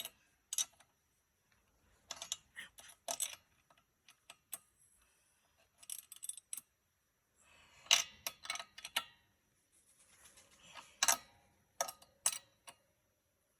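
Metal clicks and clinks of a wrench on a lawnmower spark plug as it is tightened down, coming in several short clusters with pauses between.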